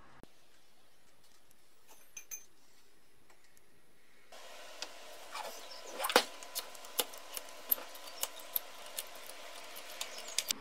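Olympia swivel bench vice being dismantled by hand: a few faint ticks, then from about four seconds in a run of sharp metal clicks and clinks as its parts are handled, the loudest about six seconds in.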